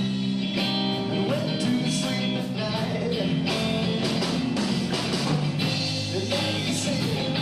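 Rock-style song with electric guitar and a steady drum beat, an instrumental stretch between sung lines.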